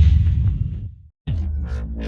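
Electronic bass drop sound effect: a deep sub-bass hit decaying away and cutting out about a second in. After a brief gap a second bass drop starts, a steady deep bass under rising synth sweeps.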